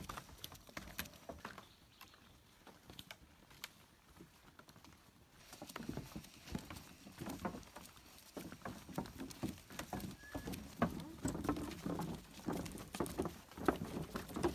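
Footsteps on a wooden plank boardwalk: irregular taps and knocks of feet on the boards, sparse at first, then denser and louder from about halfway through.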